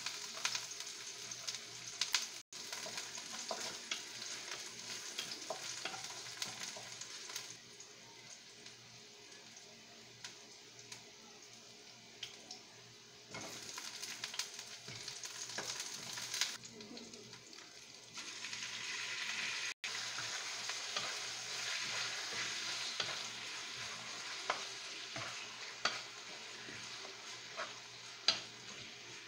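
Ginger and garlic, then onion and strips of chicken, sizzling in hot oil in a wok, with a wooden spatula stirring and scraping against the pan. The sizzle is steady and crackly, quieter in the first third and louder in the second half once more is in the wok.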